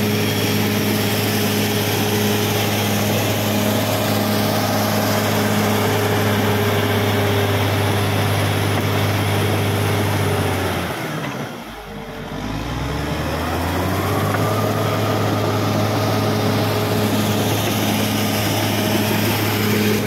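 Caterpillar D6R XL crawler bulldozer's diesel engine running steadily under load. About eleven seconds in, the engine speed drops sharply, then builds back up over the next couple of seconds.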